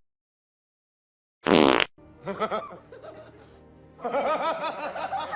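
A short, loud buzzy sound about a second and a half in, followed by a person laughing in quick bursts over music, the laughter getting louder near the end.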